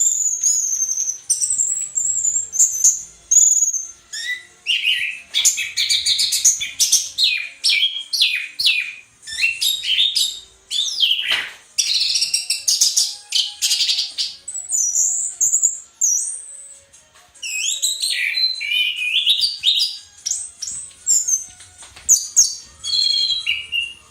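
Orange-headed thrush singing a long, rapid, varied song of chirps, slurred whistles and trills, in full song with only a short pause a little past the middle.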